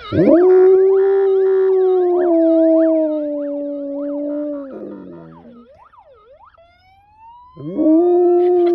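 Alaskan malamute howling along with a siren: one long howl held on a steady note that drops away after about five seconds, then a second howl starting near the end. Behind it the siren runs fast up-and-down sweeps, then a slow rising wail.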